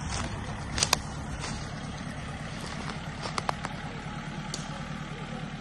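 Small compact tractor's engine running steadily with an even low throb as it tows a loaded trailer, with a few sharp clicks about a second in and again near three and a half seconds.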